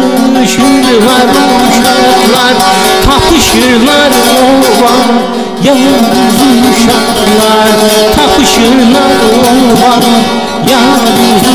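Azerbaijani folk music: an ornamented, wavering melody over steady held notes, in a passage between sung verses.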